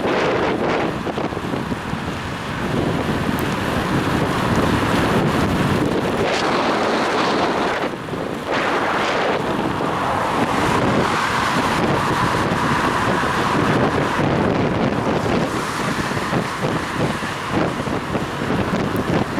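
Wind buffeting the microphone of a head-mounted action camera on a moving bicycle, a loud steady rush with gusts that rise and fall.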